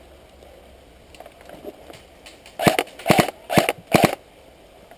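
Airsoft guns firing four short, rapid bursts a little past halfway through, each a quick string of sharp cracks.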